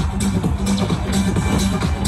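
Electronic dance music with a steady beat of about two beats a second and a pulsing bass line.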